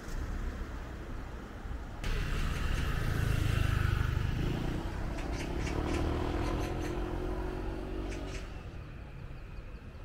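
A car driving past: its engine and tyre noise swell up about two seconds in, peak, then fade away near the end.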